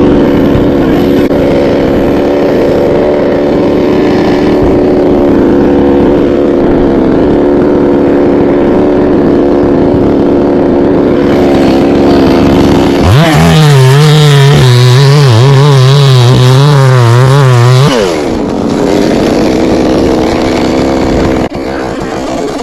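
Chainsaw running steadily, then opened up to full throttle about thirteen seconds in for some five seconds, its pitch wavering as if under load in the coconut trunk, before dropping back to a lower steady run.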